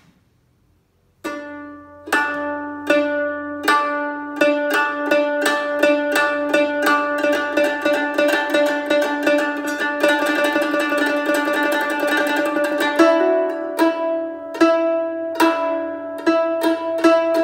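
Guzheng played with tremolo (yaozhi): the strings are plucked in rapid repeated strokes that sustain each note, starting about a second in, with a shift to a higher note near the end.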